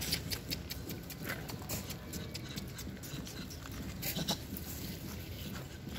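Rhesus macaques calling and moving about on grass and dry leaves, with frequent sharp clicks and rustles and a louder crackle about four seconds in, over a steady low rumble.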